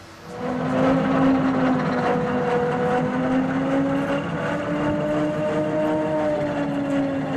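A motor running steadily, with a hum whose pitch drifts slightly up and down; it starts about half a second in.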